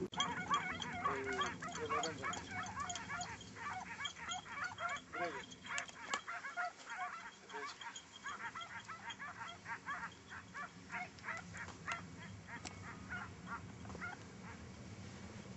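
A pack of hare-hunting scent hounds baying on a hare's trail: many short, overlapping calls, several a second, faint, thinning out toward the end.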